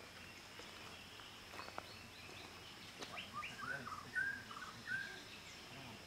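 A songbird in tropical rainforest sings a short phrase of clear, slurred whistled notes about halfway through. Quiet forest ambience and a faint steady high tone run underneath.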